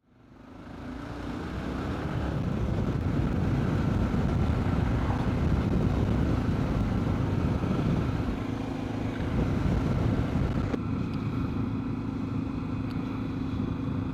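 BMW F650 Strada's single-cylinder engine running on the road under way, with wind rush over the chin-mounted camera, fading in over the first two seconds and then steady.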